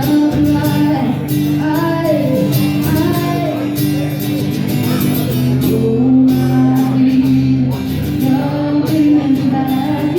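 A woman singing a slow rock song over guitar accompaniment.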